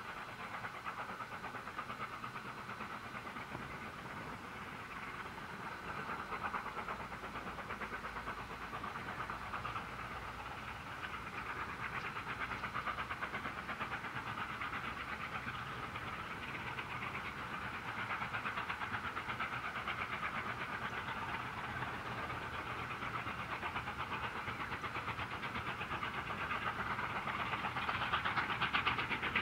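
Two QJ-class 2-10-2 steam locomotives double-heading a freight train, heard from a distance working upgrade. A steady rush of exhaust grows gradually louder as the train comes nearer.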